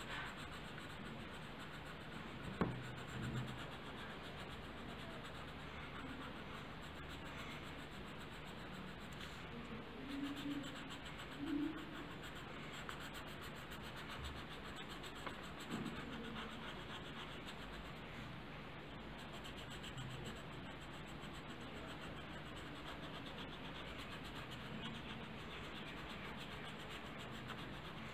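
A black colouring pencil rubbing and scratching steadily on paper while stripes are shaded in, faint, with a brief knock about two and a half seconds in.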